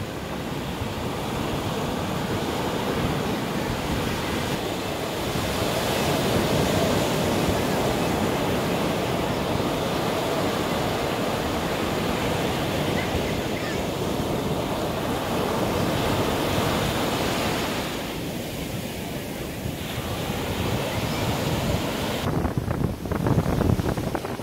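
Sea waves breaking and washing up a sandy beach in a steady rush. Near the end this gives way to uneven wind rumbling on the microphone.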